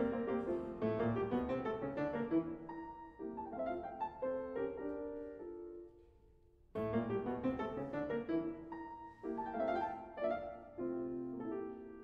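Background piano music: a slow piece of single struck notes and chords that die away. The music fades to a brief pause about six seconds in, then a new phrase begins.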